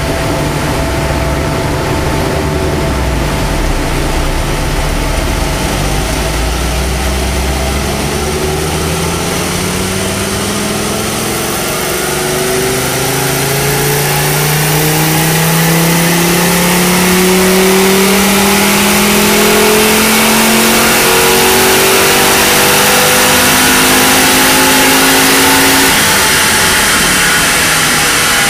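1986 Audi Quattro's turbocharged five-cylinder engine under load on a rolling road. It runs at a steady speed at first, then from several seconds in its note climbs slowly and grows louder as it pulls up through the revs, and drops away near the end as the throttle is lifted.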